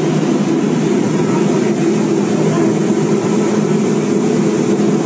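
Rice mill machinery running: a loud, steady mechanical noise.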